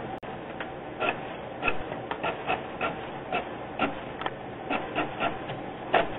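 HP Photosmart TouchSmart Web inkjet all-in-one printer printing a network report: its mechanism runs with short, irregular clicks and knocks, about two a second, over a steady mechanical noise, with one sharp click just after the start.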